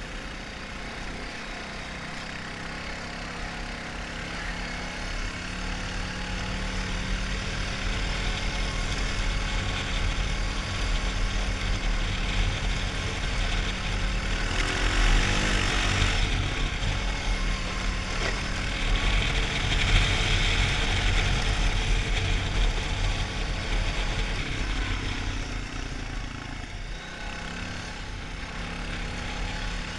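Honda 450 ATV's single-cylinder four-stroke engine running steadily as it rides along, getting louder toward the middle of the ride and easing off near the end. A rushing noise swells twice around the middle.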